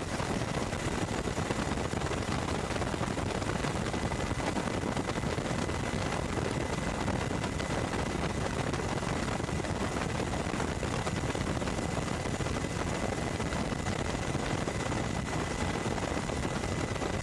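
Steady, dense aircraft engine noise, with a thin high whine running through it.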